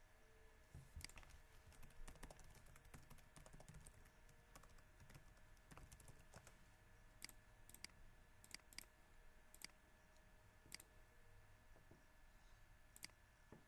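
Faint computer keyboard typing and mouse clicks: scattered single keystrokes and clicks, irregularly spaced, over a faint steady hum.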